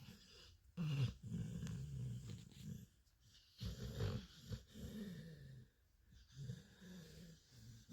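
Dog snoring in its sleep: three long, low snores of about two seconds each, with short quiet breaths between them.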